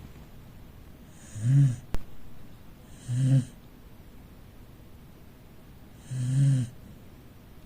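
A corgi snoring in its sleep: three short snores, about a second and a half in, at three seconds and past six seconds. There is a single sharp click just before the second snore.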